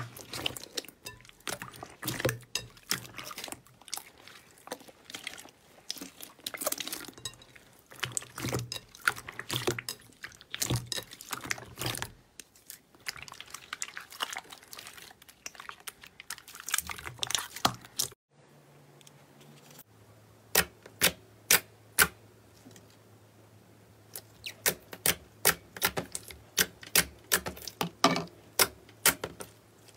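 Hands squishing and pressing a soft slime in a glass bowl, giving a dense run of wet squelches and small crackling pops. About two-thirds of the way through a metallic gold slime is stretched and folded, giving sharp clicking pops, at first one or two a second, then coming quicker. A low steady hum sits under both.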